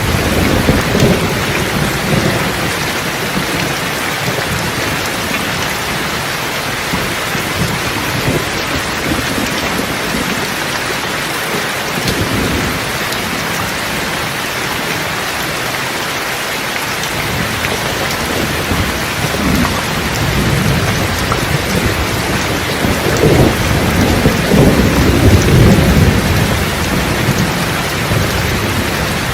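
Steady heavy rain falling, with rolls of thunder rumbling underneath, at the start and again for several seconds past the middle.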